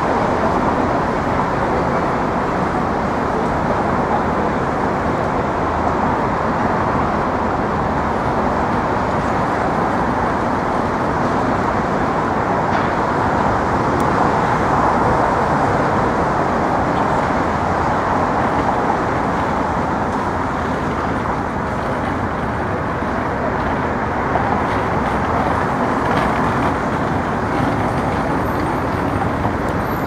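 Steady city road-traffic noise: a continuous, even rumble of passing cars, buses and trucks with no single event standing out.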